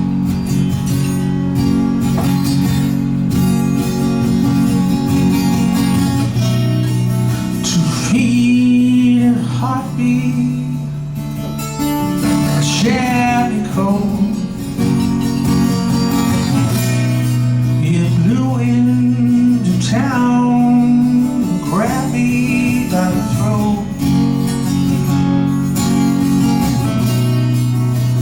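Live acoustic guitar music: steady strummed chords, with a melody line over them that slides and bends in pitch several times.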